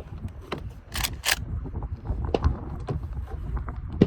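Wind rumbling on the microphone, with a scatter of sharp clicks and ticks, two louder ones a little after a second in.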